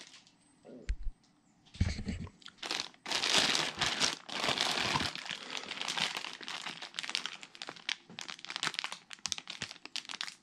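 Plastic packaging bags crinkling and rustling as bagged parts are handled and lifted out of a cardboard box, with a couple of low thumps in the first two seconds.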